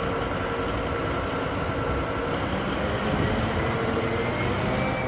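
Large mining haul truck's diesel engine running steadily, with a faint high whine that rises a little and then falls near the end.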